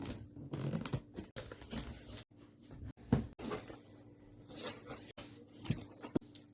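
Packaging being torn open and handled while unboxing: irregular rustling, tearing and handling noises in short snippets, broken by several abrupt cuts.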